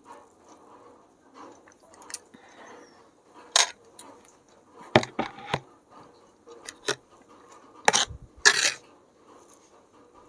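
Glass and cutlery clinks: a drinking glass set down and a steel fork knocking and scraping against a serving tray as noodles are gathered. Several sharp clinks and knocks, with a brief scrape near the end.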